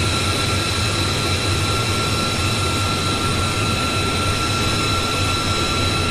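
Aircraft engine running steadily, a constant whine of several high tones over a low hum.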